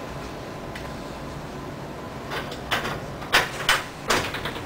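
A tram driver's cab door being opened: a run of clicks and knocks, a few tenths of a second apart, starting about halfway through. Underneath is the steady low hum of the tram's interior.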